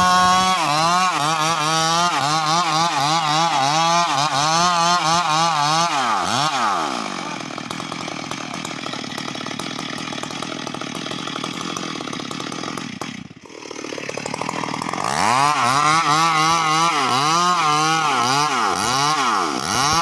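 Stihl MS381 two-stroke chainsaw running at high revs while cutting mahogany, its pitch surging up and down in quick waves. From about seven seconds it settles into a lower, rougher sound. It dips briefly near thirteen seconds, then from about fifteen seconds it revs in surges again.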